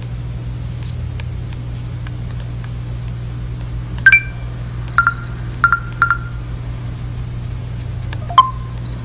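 Samsung HMX-W300 camcorder giving short electronic beeps as its buttons are pressed: one beep about four seconds in, three quick beeps over the next two seconds, and a lower beep near the end.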